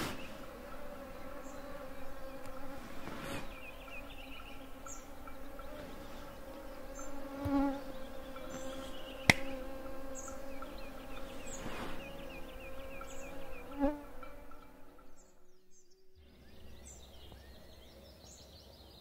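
Mosquitoes whining in a steady high drone around the sleeper's net, with small bird calls over it and a single sharp click about nine seconds in. The whine stops about fifteen seconds in, leaving quieter birdsong.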